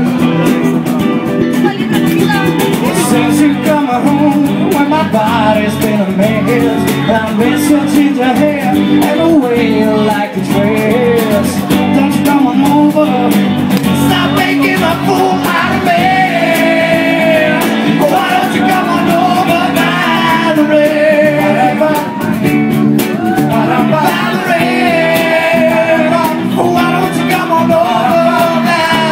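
A live band of electric and acoustic guitars, bass guitar and cajon playing a pop-rock song, with singing over it.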